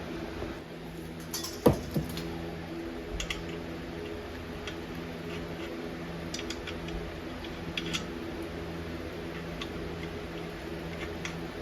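Metal clinks and clanks as a steel brake drum is handled on the axle hub and wheel studs, the loudest a sharp ringing clank a couple of seconds in, with lighter clicks scattered after it. A steady low hum runs underneath.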